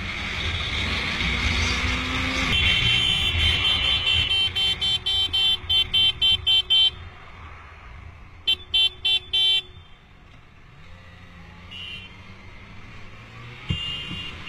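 A vehicle horn sounds over motorcycle engine and wind noise. It starts about two and a half seconds in with a long blast, breaks into quick repeated toots about three a second, and after a short pause gives four more short toots. Lower, steady riding noise follows.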